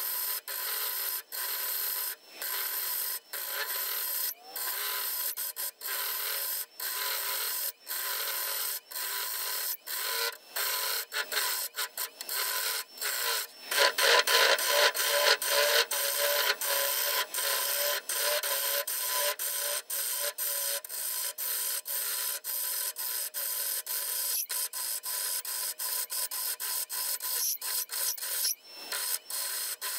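Bowl gouge cutting the inside of a spalted maple and mahogany bowl spinning on a lathe: a steady rasping hiss of wood being cut, broken by many short breaks, louder for a few seconds about halfway through.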